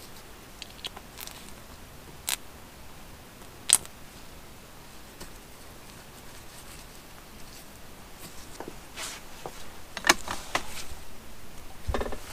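Small metal clicks and taps from handling the gear-drum detent spring and knob and fitting them into the Suzuki TS185 engine case: two sharp clicks a couple of seconds in and again near the four-second mark, then a cluster of taps near the end.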